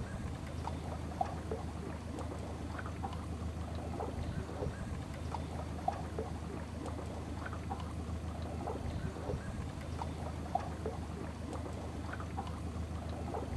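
A small boat's motor running steadily with a low drone, with scattered short splashes of water along the hull.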